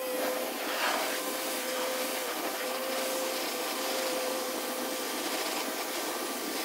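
Pressure washer spraying water onto a soapy car wheel and tire: a loud, steady hiss of spray with a faint steady hum underneath.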